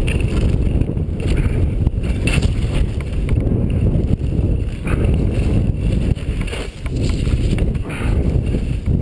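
Wind rumbling on a helmet-mounted action camera's microphone while skiing downhill. The skis hiss and scrape on the snow, with a brief scrape about once a second at the turns.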